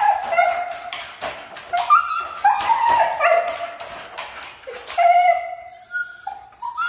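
Siberian husky crying in a wire crate: a string of high, wavering whines and yowls, each about half a second to a second long, with short gaps and a few sharp clicks between them.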